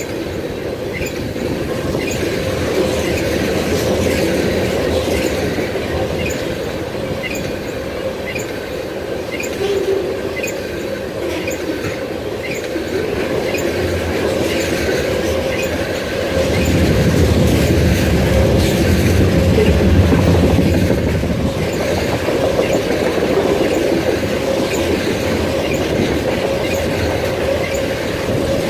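Tank cars of a freight train rolling past close by: a steady rumble of steel wheels on rail with rhythmic clickety-clack over the joints and a steady high whine. The low rumble swells louder for a few seconds just past the middle.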